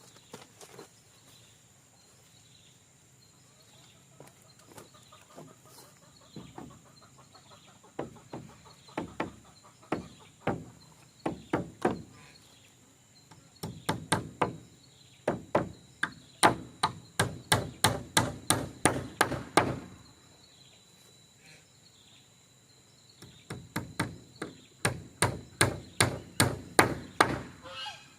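Repeated blows of a hand tool striking wood, a few scattered strikes at first and then two fast runs of about three blows a second, typical of work on a wooden duck pen.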